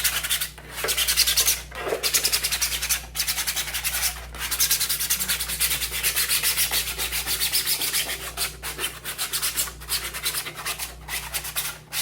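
Hand sanding of a 3D-printed plastic helmet piece with sandpaper: quick back-and-forth rasping strokes, about five a second, with a few brief pauses.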